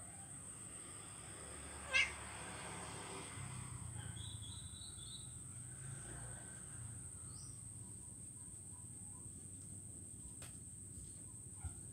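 A cat meows once, briefly and sharply, about two seconds in. Behind it run a steady high insect buzz and a few faint bird chirps.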